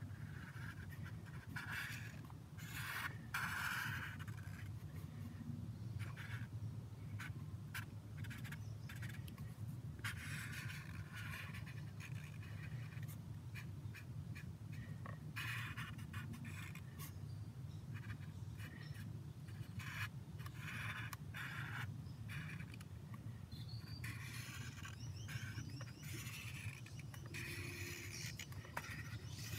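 Felt-tip marker scratching across paper in short strokes with brief pauses between them, over a steady low hum.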